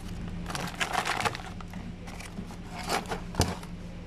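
Rustling and crinkling of plastic wrapping and cardboard packaging as a new clutch disc is handled, with one sharp knock about three and a half seconds in.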